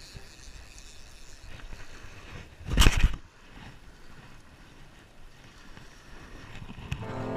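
Light surf washing on the shoreline, with a loud, brief rush of noise about three seconds in. Music with piano begins near the end.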